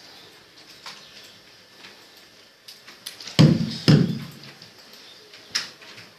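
A toddler knocking things about on a desk: scattered light clicks and taps, then two loud thumps about half a second apart, and another sharp knock near the end.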